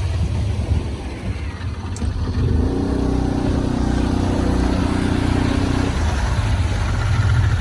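Motorboat engine running steadily over a constant low rumble, its hum coming through clearest for a few seconds in the middle.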